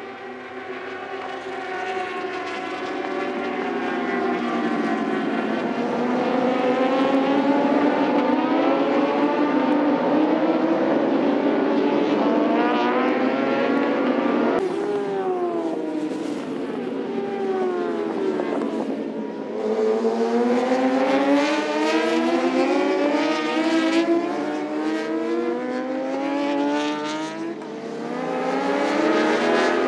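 A pack of superbike engines revving hard and accelerating up through the gears, many overlapping pitches rising and dropping at each shift. The sound changes suddenly about halfway through, then more bikes rev and pass.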